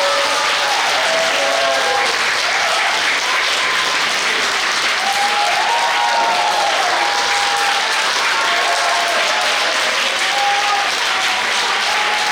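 Audience applauding steadily, a dense unbroken clapping with a few voices calling out over it.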